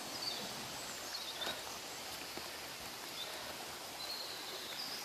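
Steady rush of a small stream's running water, with a few faint high bird calls.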